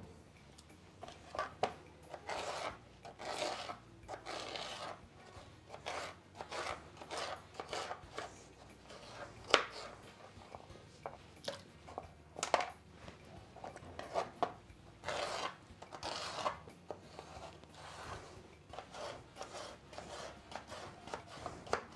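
Kitchen knife cutting peeled raw potatoes into cubes on a plastic cutting board: an irregular series of short knife strokes and taps on the board, a few of them louder.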